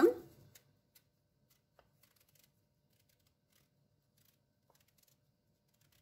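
A paring knife peeling the skin off a quince, heard only as a few faint, sparse scrapes and ticks. The rest is near silence.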